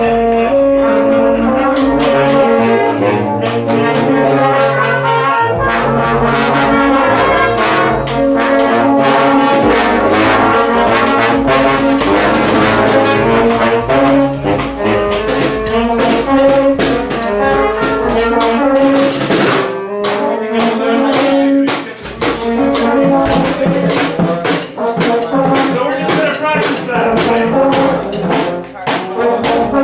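Brass street band playing together: trumpets, trombones and a tuba repeating a short two-note riff over a low bass line, with percussion keeping time.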